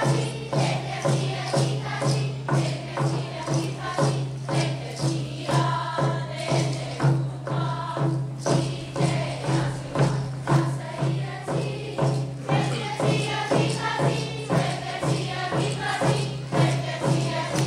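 A group singing together in the Tlingit language over a steady drum beat, about two beats a second.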